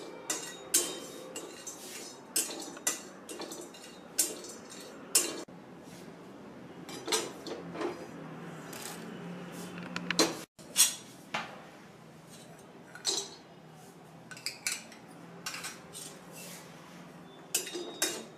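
A spatula scraping and clinking irregularly against a steel kadhai while whole spices are stirred and dry-roasted in it, first cinnamon sticks and then black cardamom pods. There is a brief break about halfway through.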